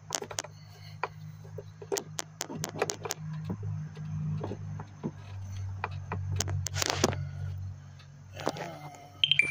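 Scattered clicks, knocks and rattles of hard plastic as a hand works the black plastic air intake duct loose from the engine, over a steady low hum.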